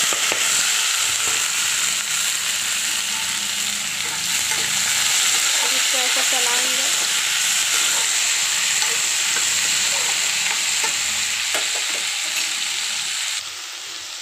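Chopped cluster beans (guar phali) tipped into a kadhai of hot oil and tempering spices (tadka), sizzling loudly and steadily as they fry and are stirred with a spatula. The sizzle drops off suddenly near the end.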